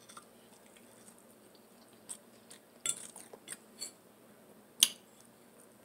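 Silverware clinking lightly against a plate while eating, a handful of short clicks in the second half, the sharpest one about five seconds in.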